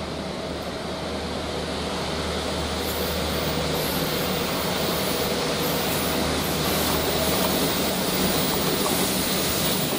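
Pair of GBRf Class 69 diesel locomotives, each with an EMD V12 engine, approaching on a railhead treatment train. Their engines run with a steady low note that grows steadily louder as they near.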